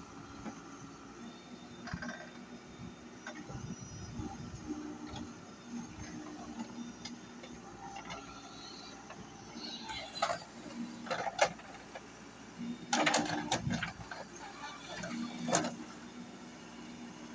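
Backhoe engine running steadily, with a series of loud knocks and clanks in the second half.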